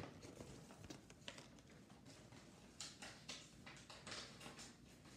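Near silence: faint scattered rustles and light taps from hands handling the deck's contents and playing mat.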